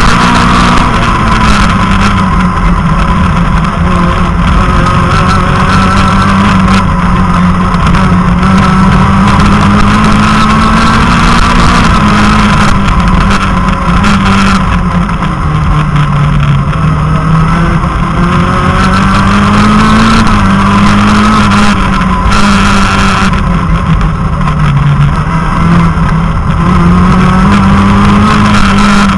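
Citroën Saxo rally car's engine heard from inside the cabin, running hard at racing speed, its pitch rising and falling repeatedly as it accelerates, shifts and slows for the bends.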